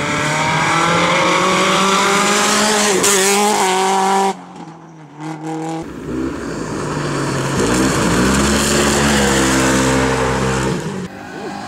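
Rally cars at full throttle on a gravel stage, engines climbing in pitch through the gears. The first cuts off abruptly about four seconds in, then a second car comes through and passes.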